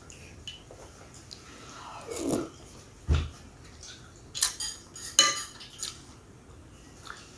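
Metal spoon and fork clinking and scraping against a ceramic soup plate, with a few sharp clinks past the middle and a dull knock about three seconds in. Soft chewing sounds in between.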